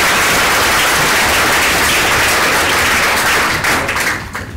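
Audience applauding: a dense, steady clapping that dies away about four seconds in, ending with a few last scattered claps.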